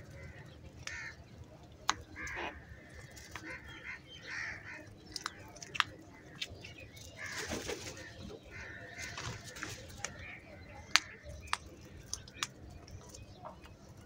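House crows and common mynas feeding on grain scattered on concrete: sharp taps of beaks striking the concrete, with scattered short bird calls.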